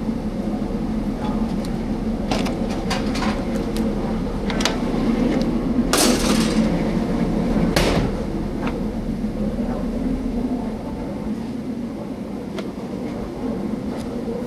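Restaurant kitchen line during service: a steady hum under scattered clanks and knocks of pans, plates and utensils, with a brief loud hiss about six seconds in.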